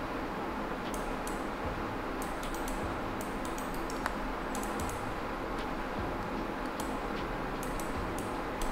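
Computer mouse and keyboard clicks, short and irregular, over a steady background hiss.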